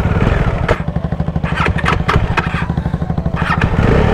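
Bajaj Dominar's single-cylinder engine running at a low, chugging idle, a rapid even beat of firing pulses, with a few short clatters over it.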